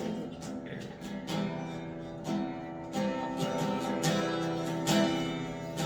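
Acoustic guitar strumming chords at a steady pace, the lead-in to a worship song.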